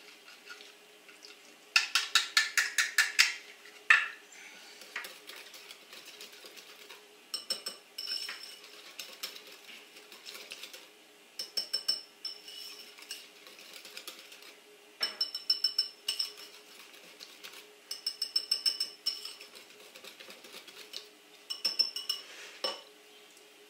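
Wire whisk beating a thick yogurt sauce in a bowl, its wires clicking against the side in quick bursts of strokes with pauses between. The bowl rings faintly with each burst.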